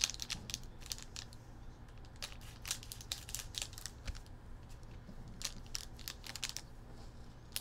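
Plastic wrappers of 2019 Donruss baseball card packs crinkling and crackling as the packs are handled and cut open with scissors, in quick irregular crackles.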